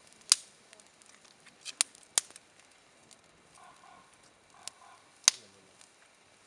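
Campfire burning, with a handful of sharp pops from the wood, the loudest just after the start and about five seconds in.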